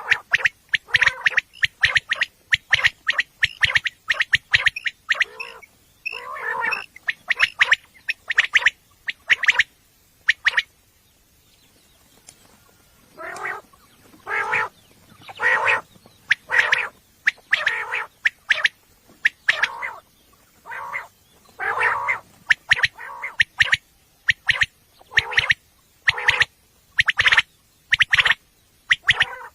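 Common quail calling: short calls repeated in quick runs, with a pause of about two and a half seconds a little over a third of the way in.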